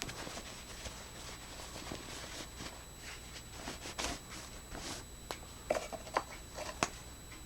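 Handling rustle of a padded nylon flashlight carrying bag as the light is worked out of it, with a few light clicks and taps near the end.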